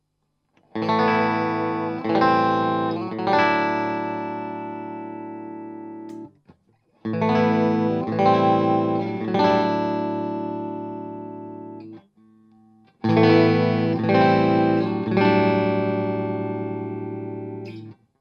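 Electric guitar played clean through an Orange Tiny Terror valve amp. Three phrases of strummed chords: each has two or three quick chord strikes left to ring out and fade over about five seconds, with a short pause before the next.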